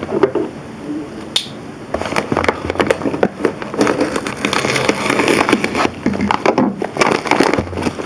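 Shipping package being opened by hand: dense crinkling and crackling of packaging material with small clicks and tearing, getting busier after about two seconds.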